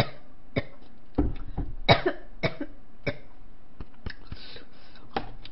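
A woman coughing in a string of short, irregular coughs, about ten over five seconds, with some throat clearing, just after drinking broth.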